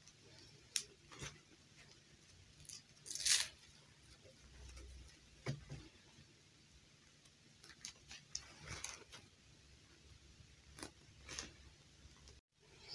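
A fashion doll being dressed by hand: soft cloth rustling and small plastic clicks and scrapes as the dress is pulled on, in short scattered bursts with the loudest scrape about three seconds in.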